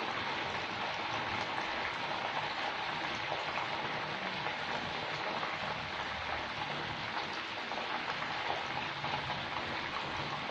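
Batter-coated mushroom pieces deep-frying in a deep pan of hot oil: a steady, dense sizzle that holds at an even level while they are turned in the oil.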